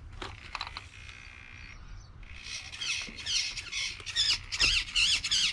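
A bird chirping in quick, repeated warbling high notes, starting about two seconds in. A faint, steady high whine comes before it.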